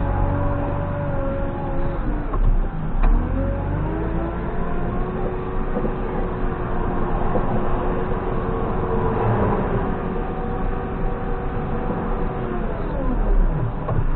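JCB 3CX backhoe loader's diesel engine running steadily, its pitch dipping and picking up again about three seconds in and once more near the end as the engine speed changes. A single sharp click about three seconds in.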